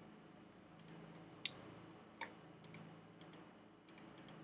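A few faint, irregular clicks from clicking at a computer, one somewhat louder about a second and a half in, over a faint steady low hum.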